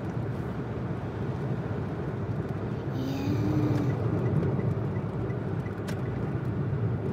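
Steady road and engine noise of a moving car heard from inside the cabin, with a short pitched hum about three seconds in and a single click near six seconds.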